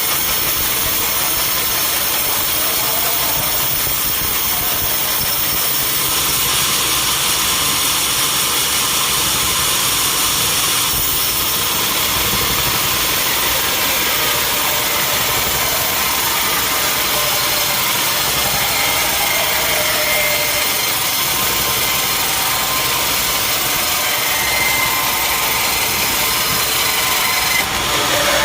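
Sawmill machinery running steadily: an engine-driven saw makes a continuous, even mechanical noise. A faint high whine comes through twice in the second half.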